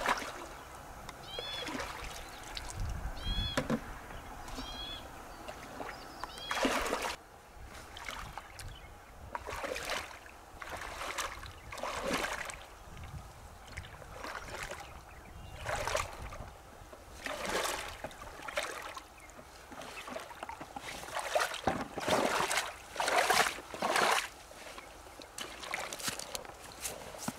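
Shallow river water splashing and sloshing in irregular bursts as a person wades through it in rubber waders, with the loudest splashes near the end.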